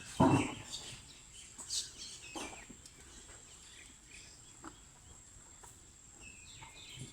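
Small birds chirping here and there in the background, with one short, louder low sound about a quarter second in and a thin steady high whine underneath.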